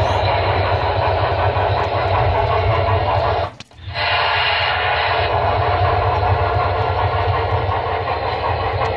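HO scale model trains running, with the locomotive sound from a Broadway Limited Paragon3 sound system and a steady deep rumble from a Rolling Thunder unit. The sound cuts out briefly about three and a half seconds in, then resumes.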